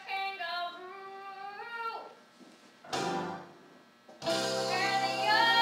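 Stage-musical music: a held melodic phrase with pitch glides fades out, a short noisy burst follows in the pause, then about four seconds in the accompaniment for the song starts with steady sustained chords and a melody over them.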